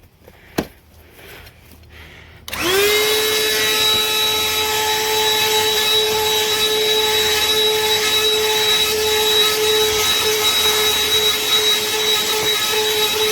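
BLACK+DECKER 20-volt dustbuster cordless handheld vacuum switched on about two and a half seconds in, after a single click. Its motor whine rises quickly and then runs at a steady high pitch.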